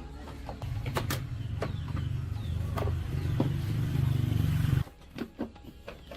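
Small 225cc motorcycle engine running with a low, steady rumble and some sharp clicks, then cutting off abruptly about five seconds in.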